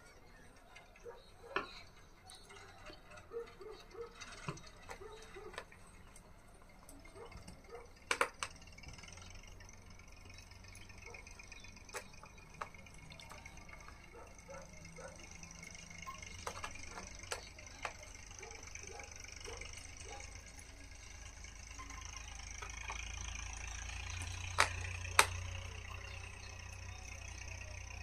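Scattered light clicks and taps of gloved hands handling a MacBook Air's aluminium bottom panel and its tiny screws, with two sharper clicks near the end. A low steady hum grows louder over the last few seconds.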